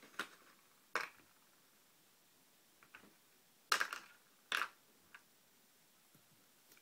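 Light, sharp clicks and taps of small metal parts, about six spread out, the two loudest a little past the middle: the pins and springs of a dismantled pin-tumbler lock cylinder being handled and set down.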